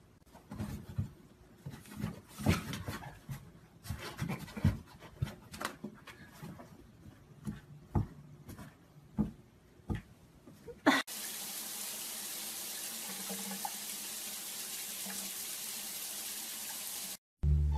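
Irregular light taps and scrapes of a cat pawing at a toy poking through a hole in a cardboard box, then, about eleven seconds in, a steady hiss of a tap running into a bathtub for about six seconds.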